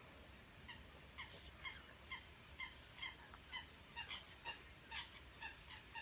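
An animal calling faintly: short pitched notes, each falling slightly, repeated in a steady series about twice a second.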